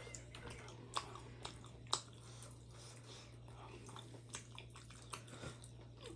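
A person chewing steamed chicken momos close to the microphone: soft, irregular wet mouth clicks and smacks, with two louder clicks about one and two seconds in.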